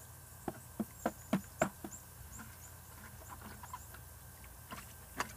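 Water in a plastic bucket splashing and plinking as a toddler dips his head into it: a quick run of small splashes in the first two seconds and two more near the end.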